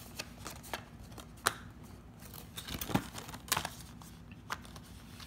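Plastic DVD keep case being opened and handled: scattered sharp clicks and snaps of the plastic, the loudest about one and a half seconds in and again around three and a half seconds in.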